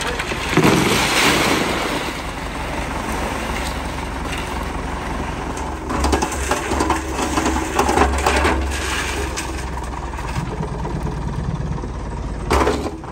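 Nuffield 4/60 tractor engine running steadily while wet concrete is tipped out of its Teagle cement mixer drum, sliding and pouring onto a board in noisy rushes about a second in and again from about six to nine seconds. A sharp knock near the end.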